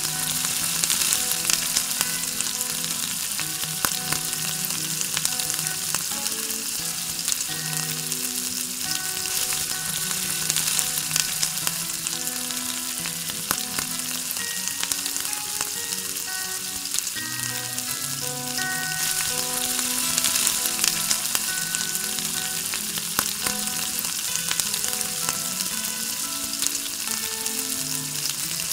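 Sliced onion and minced garlic, then raw chicken pieces, sizzling in hot oil in a pot: a steady frying hiss with small crackles and pops, stirred with a spatula.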